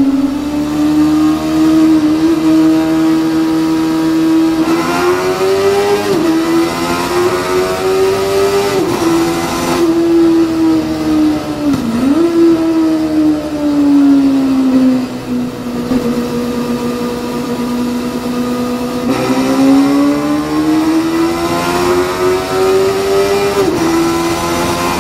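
Honda CB400 Super Bol d'Or's 400 cc inline-four engine at high revs under in-gear acceleration runs. Its note climbs steadily, drops sharply, holds for a few seconds, then climbs again, several times over, with a steady rush of noise beneath.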